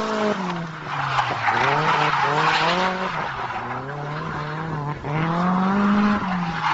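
Drift car engine revving, its pitch dropping and climbing again several times, while the tyres squeal and skid.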